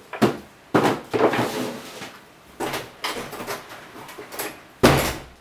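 A series of knocks and bumps of things being handled, with the loudest thump near the end.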